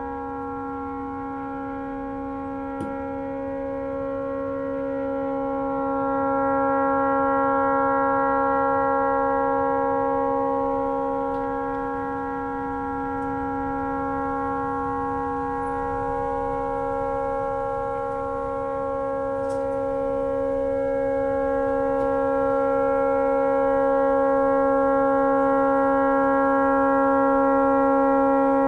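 A tugboat's horn stuck on, sounding one unbroken, steady multi-tone blast that swells and dips slightly in loudness. The horn has malfunctioned and cannot be shut off.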